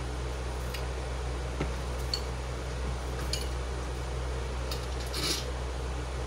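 Adjustable wrench working the bolts on a blower fan's metal housing: a handful of light metallic clicks and taps, scattered and irregular, the loudest a little after five seconds. A steady low hum runs underneath.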